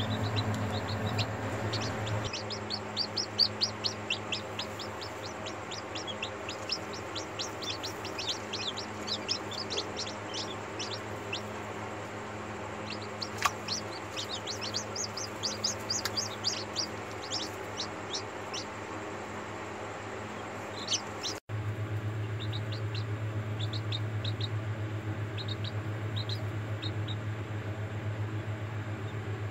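Newly hatched chicks peeping: rapid, high, short calls in bursts over a steady low hum. About two-thirds of the way in the peeps become fainter and the hum louder.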